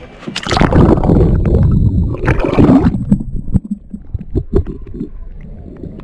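Water splashing and gurgling close to a kayak for about three seconds, then quieter, with a few short knocks and taps.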